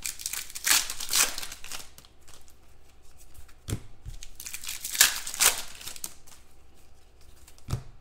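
Wrappers of 2016 Contenders football card packs crinkling and tearing as the packs are handled and opened, in two bursts of rustling. A couple of short knocks, about four seconds apart, as packs or cards are set down on the table.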